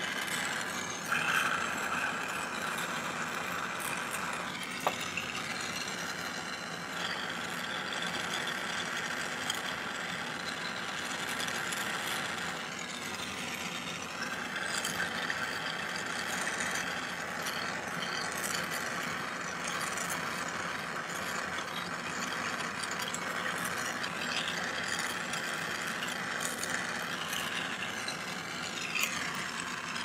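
Jeweller's soldering torch flame hissing steadily while sterling silver is heated for hard soldering, with a brief tick about five seconds in.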